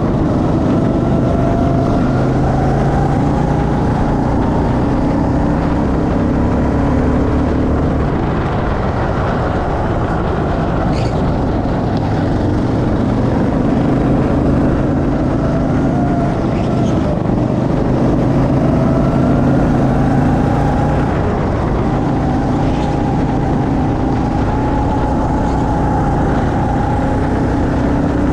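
Go-kart engine running under way, heard from on board, its pitch rising and falling repeatedly as the kart speeds up and slows.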